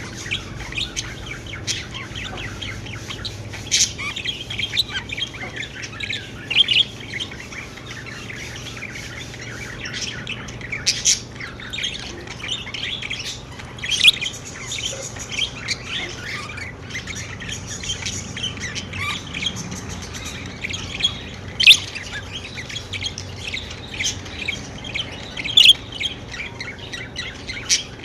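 Pet budgerigars chattering and chirping without pause, a busy warble of short high notes broken by frequent sharp, louder squawks.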